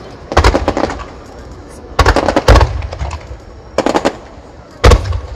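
Aerial fireworks going off in rapid volleys of sharp bangs: four quick strings of reports, about a second to a second and a half apart.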